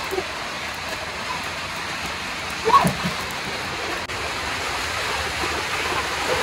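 Steady heavy rain falling on corrugated metal sheeting, a dense, even hiss. About three seconds in comes a short sound whose pitch falls.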